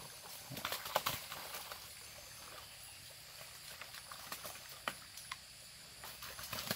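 A few scattered light knocks and faint water sloshing around a small bamboo boat as the men move in it.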